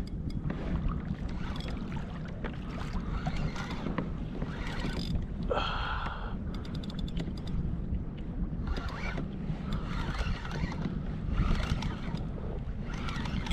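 Water lapping and sloshing against a plastic sit-on-top kayak's hull on the open ocean, with a steady rumble of wind on the microphone.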